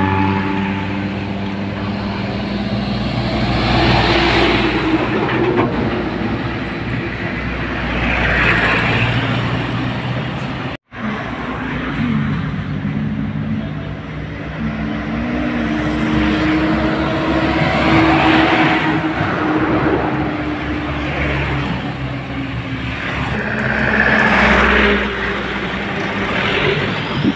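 Heavy trucks' diesel engines and tyres as they pass close by one after another in slow highway traffic, each pass swelling and fading. The sound cuts out for an instant about eleven seconds in.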